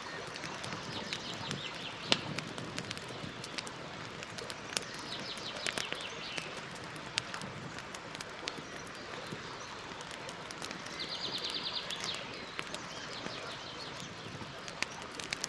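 Campfire burning, the wood crackling with irregular sharp pops, one much louder about two seconds in. Birds chirp in the background, with a quick high trill later on.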